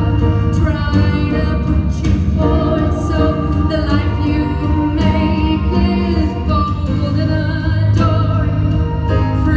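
Live band playing a slow pop song, with a steady bass line under a woman's sung, held notes.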